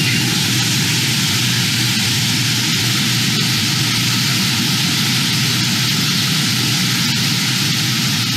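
Shelled corn pouring from a hopper-bottom grain trailer's open gate through a steel grate into a receiving pit. It makes a loud, steady rushing hiss with a low hum beneath it.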